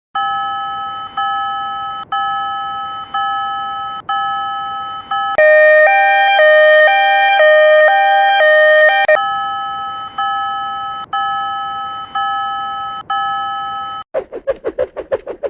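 A cartoon level-crossing warning bell sound effect, an electronic ding struck and decaying about once a second. In the middle it switches for a few seconds to a louder, faster alternating two-note chime, then returns to the slow dinging. Near the end it gives way to a rapid fluttering pulse.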